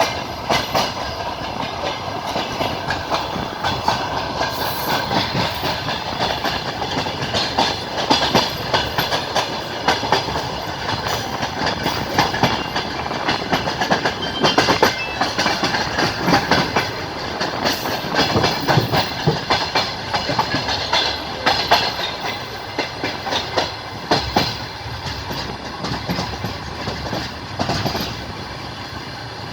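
Passenger train wheels clattering over the rail joints: a steady running rumble with a continuous run of sharp, unevenly spaced clicks and knocks, easing off a little near the end.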